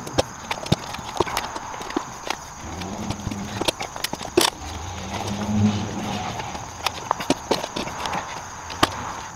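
Manual tire changer being worked: the steel mount bar is levered around a steel wheel rim, forcing the tire bead on, with irregular metal clanks and clicks. Two low drawn-out sounds come in, about 3 and 5.5 seconds in.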